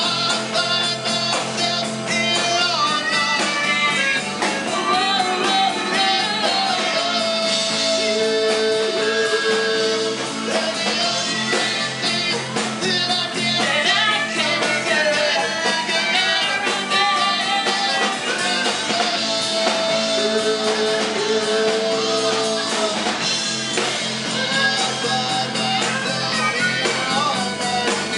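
Live rock band playing at a steady loud level: drum kit and electric guitars, with a vocalist singing held notes over them.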